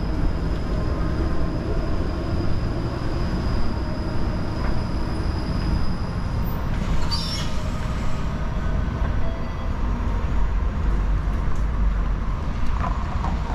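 Streetcar rolling along its rails with a steady low rumble, and a brief high-pitched screech of the wheels about seven seconds in.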